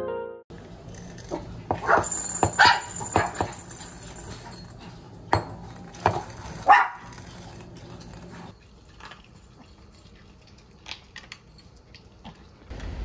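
Small dogs, Pomeranians, yapping in a string of short, sharp barks while their breakfast kibble is poured, loudest two to three seconds in and again around six seconds in. After that come fainter scattered clicks as they eat from ceramic bowls.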